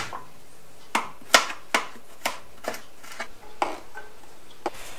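Kitchen knife slicing boletus mushrooms on a plastic cutting board: about seven sharp knocks of the blade on the board, unevenly spaced.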